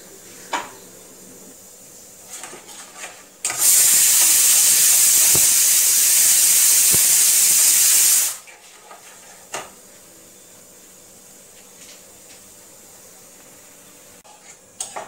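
Pressure cooker whistle: a loud, steady hiss of venting steam that starts about three and a half seconds in and cuts off sharply some five seconds later, the cooker releasing pressure as it boils soaked dal. A few light knocks of a spatula on a pan come before and after.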